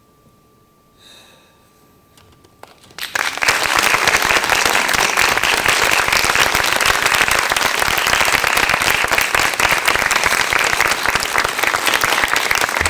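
Audience applause breaking out about three seconds in after a hushed pause, then dense and steady clapping.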